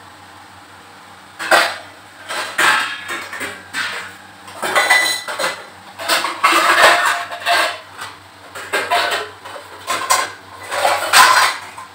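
Steel pots and utensils clattering as they are rummaged through in a basket: irregular clanks and knocks, starting about a second and a half in.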